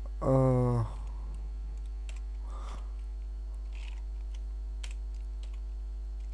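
A few faint computer-keyboard keystrokes and clicks over a steady electrical mains hum. About half a second in, a short hummed vocal sound from a man, falling slightly in pitch, is the loudest thing.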